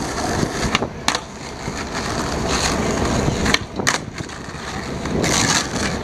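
Skateboard wheels rolling over rough asphalt: a steady gritty rumble broken by two pairs of sharp clacks, about a second in and again at three and a half seconds.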